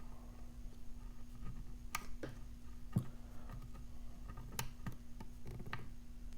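Faint, scattered metal clicks and ticks of a lock pick and tension tool working in the keyway of a Brady Safekey padlock, about half a dozen spread over several seconds. A steady low hum runs underneath.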